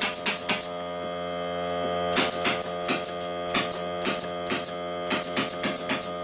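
Greenworks 40 V cordless air compressor's motor running with a steady hum, over a fast regular run of sharp knocks, about five a second, that stops for a moment shortly after the start and then resumes.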